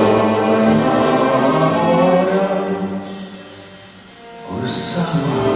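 Orchestral song accompaniment with sustained voices in a choir-like chord, held for about three seconds and then fading; the orchestra swells in again about a second before the end.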